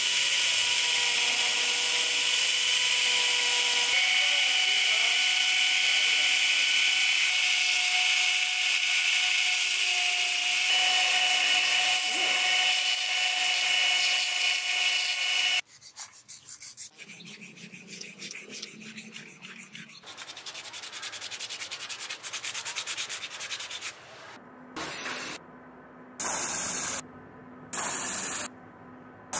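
Belt grinder running as a wooden handle block is pressed against its abrasive belt: a steady, loud grinding hiss with faint whining tones, which stops suddenly about halfway through. Quieter rhythmic rubbing follows, then several short hissing bursts near the end.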